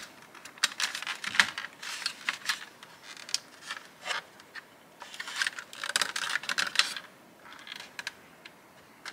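Hard plastic parts clicking and scraping against each other as an aftermarket rear air-vent unit is pressed into a VW Passat B8 rear console trim panel and worked toward its T-clips. The clicks come in quick flurries and thin out to a few faint ticks near the end.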